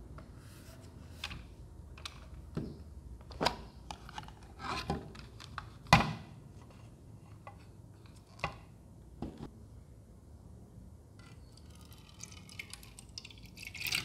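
Handling sounds from unboxing a small plastic spray fan: scattered clicks and knocks, the loudest about six seconds in, then a spell of rustling near the end.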